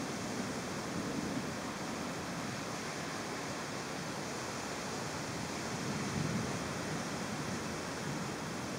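Heavy storm rain and wind: a steady rushing hiss that swells slightly about a second in and again around six seconds.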